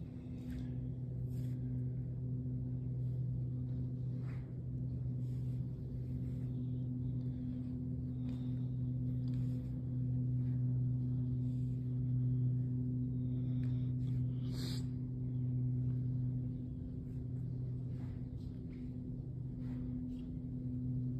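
A low droning hum held at two steady pitches, the lower one slowly swelling and fading. Faint scattered clicks sound throughout, with one sharper click about two-thirds of the way through.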